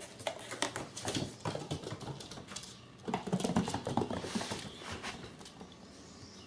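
A kitten moving about and playing: a quick run of scratches, clicks and rustles, busiest about three to four and a half seconds in.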